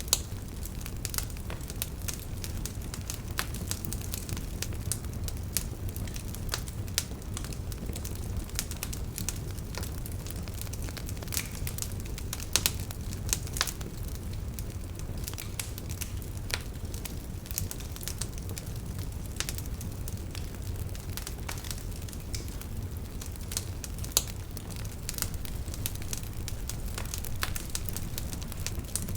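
Wood campfire burning steadily: a low rumble of flames under frequent irregular crackles and sharp pops.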